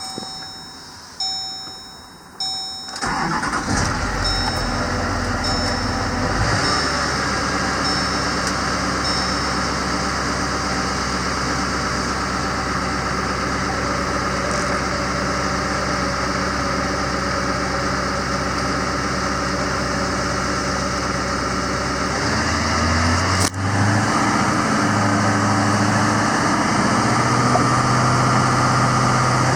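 A few short dashboard chime beeps, then the 6.6 L Duramax V8 turbodiesel of a 2008 GMC C5500 cranks and starts about three seconds in, settling into a steady diesel idle. About 23 seconds in there is a click, and the engine note shifts to a slightly different, steady pitch.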